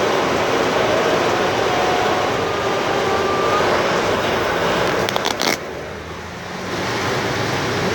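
Heavy rain pouring down in a dense, steady hiss, with road traffic running beneath it. A few sharp clicks come about five seconds in, then the rain noise drops for about a second before swelling back.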